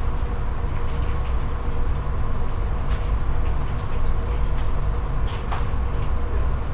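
Steady low rumble and hum of room noise, with a few faint clicks.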